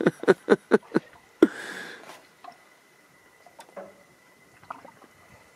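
A man laughing, about five quick ha's, followed by a short breathy rush of air; after that it is quiet apart from a few faint clicks.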